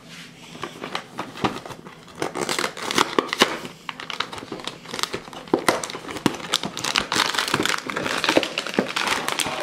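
Cardboard cookie box being torn open and handled by hand: a long run of crinkling and tearing of the packaging, starting about half a second in.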